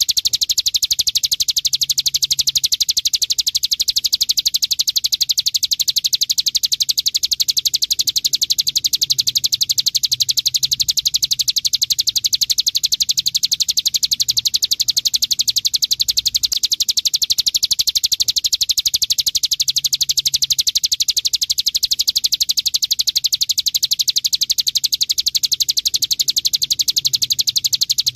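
Hill prinia (ciblek gunung) singing an unbroken, very fast rattle of high chirps, many to the second and evenly spaced, in the machine-gun-like 'ngebren' style that keepers play to young birds as a song tutor.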